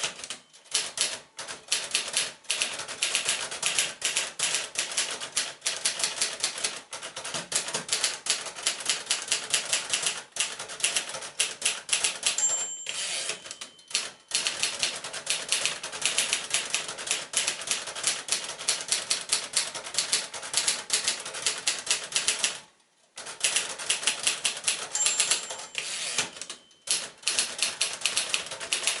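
1956 Royal Companion manual portable typewriter typing: rapid, uneven clacking of typebars striking the platen. A brief bell-like ring sounds twice, about halfway through and again near the end, each time followed by a short break in the typing, the pattern of the margin bell and a carriage return.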